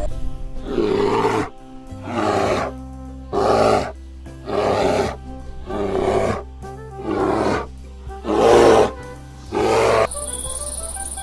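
A large animal's roaring growls repeated about eight times in an even rhythm, each under a second long, over steady background music.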